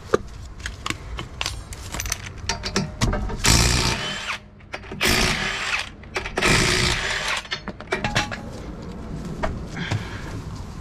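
Cordless impact wrench spinning the lug nuts off a van's rear wheel in three bursts of about a second each, with clicks and clatter of the nuts and wheel being handled around them.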